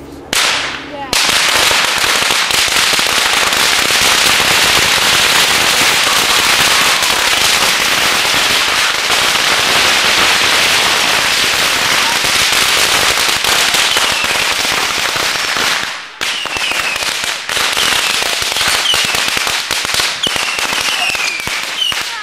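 Ground firework burning on the pavement, crackling densely and continuously with rapid sharp pops. The crackle breaks off briefly about two-thirds of the way through, then carries on with a few short high falling whistles among the pops.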